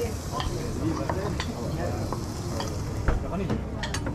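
Food sizzling in a pan while a metal utensil stirs it, with frequent sharp clicks and knocks against the pan and a steady low hum underneath.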